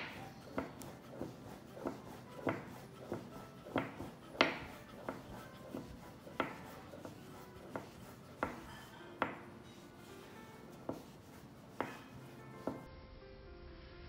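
Wooden rolling pin knocking on a plastic cutting board in an even rhythm, about three knocks every two seconds, as a bun wrapper is rolled out and turned; the knocks stop near the end. Soft background music underneath.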